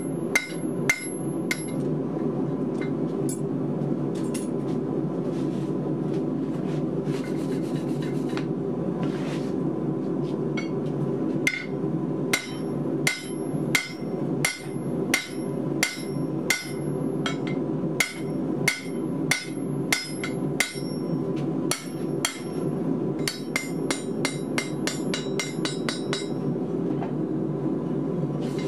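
Hammer blows ringing on a round bar laid across a red-hot steel block on the anvil, driving a groove into the block to form a bottom swage. The blows are few at first, then come steadily at about two a second, and near the end give way to a quick string of lighter taps. A steady low roar runs underneath.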